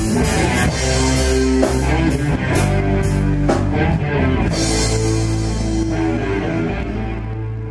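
Rock band of acoustic guitar, electric guitar, bass guitar and drum kit playing the closing bars of a song. Drum and cymbal hits stop about four and a half seconds in, and the last chord rings on and fades out.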